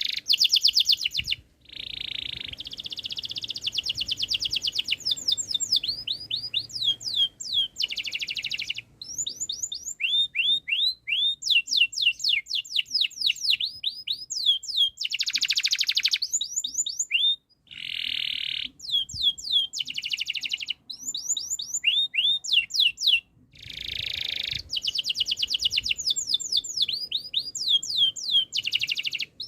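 Domestic canary singing, alternating fast buzzing rolls with runs of quick down-slurred whistled notes, broken by a few short pauses.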